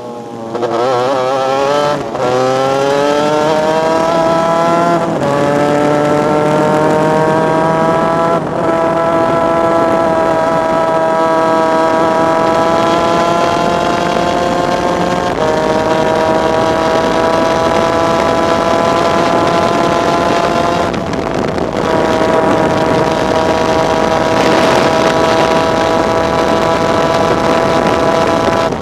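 Onboard sound of a superkart's 250cc two-stroke engine accelerating hard up through the gears, its pitch climbing and then dropping at each of four upshifts over the first fifteen seconds. After that it runs near flat out at a steady high pitch, with a brief lift about 21 seconds in.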